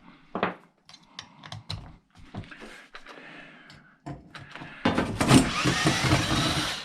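Light clicks and knocks of tools and metal parts being handled, then a cordless driver runs for about two seconds, its speed wavering, as it backs a screw out of the charger's case.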